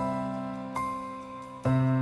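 Slow gospel-ballad intro played on piano: sustained chords, with new notes struck about three-quarters of a second in and again near the end, each fading between strikes.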